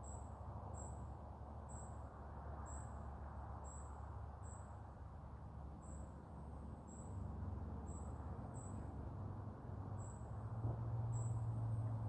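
An insect, cricket-like, giving short, high chirps about once a second in an even rhythm, over a steady low rumble of outdoor background noise.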